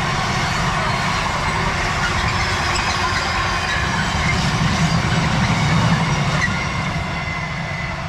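Freight train's wagons rolling past on the line, a steady rumble that swells to its loudest about five to six seconds in, then eases off as the wagons draw away.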